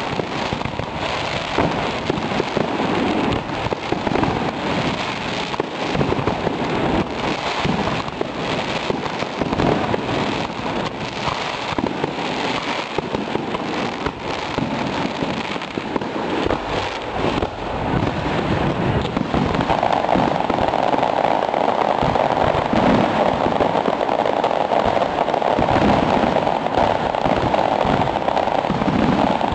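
Fireworks display: a continuous mix of crackling and bangs from bursting shells. It grows louder and denser about twenty seconds in.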